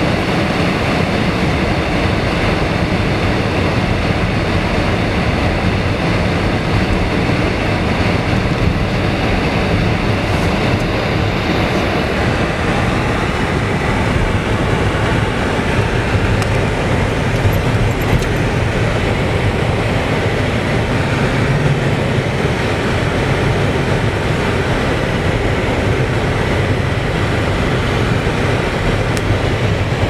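Steady road and tyre noise heard inside a moving car's cabin as it drives over snow-covered streets.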